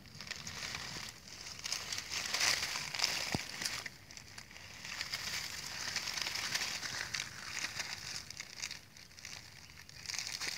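Dry leaves and grass crackling and rustling as a Temminck's ground pangolin noses and digs into a termite mound and shifts its body through the litter, in uneven spells that are loudest about two to four seconds in.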